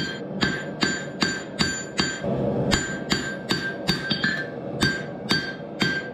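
Hand hammer striking a red-hot 52100 high-carbon steel cleaver blade on an anvil, a steady run of ringing blows at about two and a half a second, with a brief pause a little after two seconds in.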